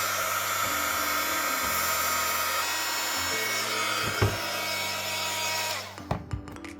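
Hot air gun blowing steadily while heating the phone to soften the screen adhesive, cut off about six seconds in; a single knock a little before that.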